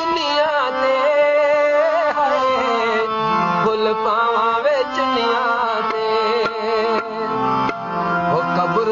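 Punjabi folk singing in the dohre mahiye style: a voice holding long, wavering, ornamented notes, accompanied by tabla.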